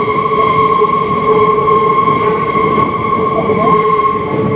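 MF77 Paris metro train running at speed, heard from inside the car: a steady, loud pitched whine over the rumble of the wheels on the track.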